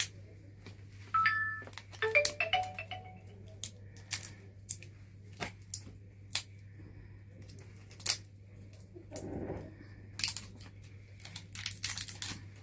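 Sharp plastic clicks and taps from handling small parts, as AA cells are fitted into a wireless microphone, with a few short electronic beeps about a second or two in and a steady low hum underneath.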